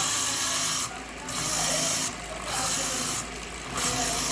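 Rasping strokes by hand, about four, each lasting just under a second with short pauses between, over a steady low engine hum.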